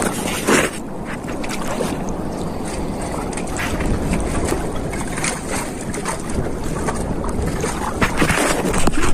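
Wind buffeting the microphone over sea water lapping and splashing, with many small splashes and knocks.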